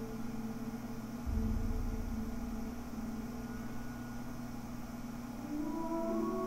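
Slow ambient music of sustained droning tones, played through a small spiral back-loaded horn speaker with a Fostex FF105WK full-range driver and recorded by microphone. A deep bass note comes in about a second in, and new higher tones enter near the end. A steady PC cooling-fan hiss runs underneath.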